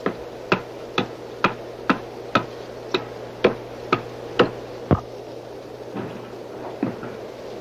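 Hatchet blade chopping into a block of black spruce driftwood held on a wooden chopping stump: sharp, even blows about two a second that stop about five seconds in, then two lighter blows.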